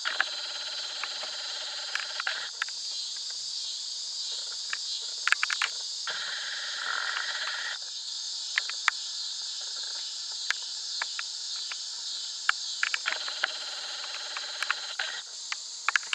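Steady high-pitched chorus of insects, with a lower insect chorus that starts and stops every few seconds, and scattered short sharp ticks. No thunder is heard.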